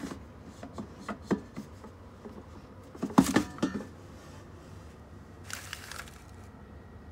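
Air fryer drawer being pulled open: a few light plastic clicks, then a louder clatter about three seconds in as the basket slides out, and a brief soft rustle near the end.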